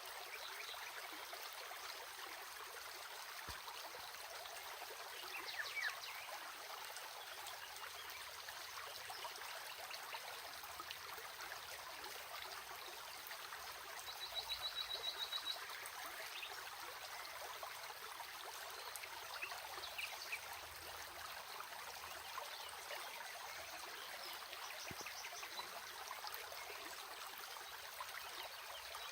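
A stream flowing steadily. It is joined by a few short high chirps and, about halfway through, a brief rapid high trill.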